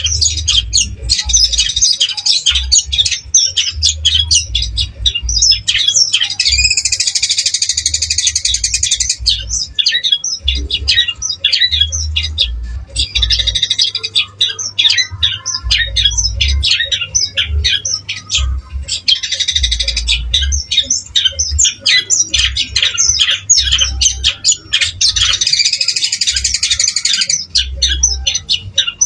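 Caged long-tailed shrike singing nonstop: a rapid stream of varied, chattering high notes, with two stretches of dense harsh buzzing, one about a quarter of the way in and one near the end. A low rumble comes and goes underneath.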